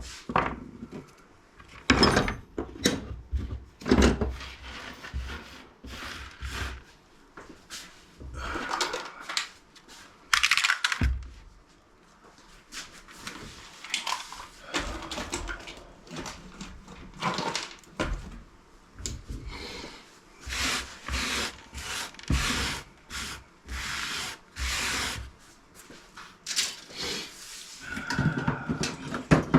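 Irregular knocks, clinks and scraping of scrap parts being handled and taken apart by hand, with pieces set or dropped down now and then.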